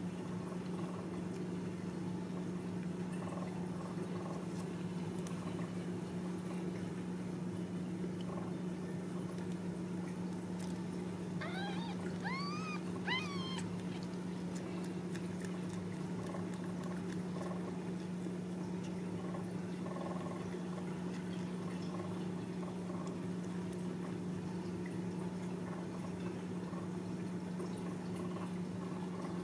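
Newborn Ragdoll kitten giving a quick run of about four thin mews, each rising and falling in pitch, about twelve seconds in, over a steady low hum.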